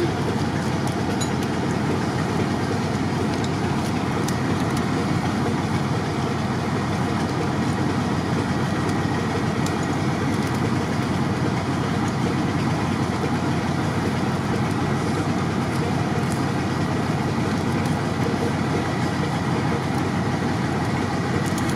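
Truck engine idling steadily, an even unbroken rumble and hiss.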